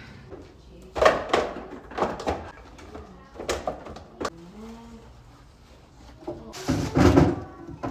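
Knocks and clatters of food containers being handled and set on refrigerator shelves, with a longer, louder clatter near the end.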